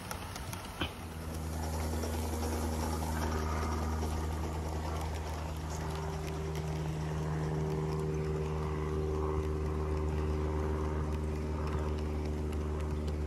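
Electric motor and gearing of a battery-powered gauge 1 model locomotive running: a steady low hum with a higher whine joining about halfway through, starting after a click about a second in.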